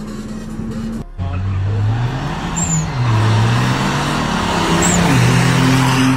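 VW Touareg's 5.0 V10 TDI diesel accelerating hard from a drag-race launch: the engine note climbs in pitch, drops at an upshift about three seconds in, climbs again and drops at a second upshift about five seconds in.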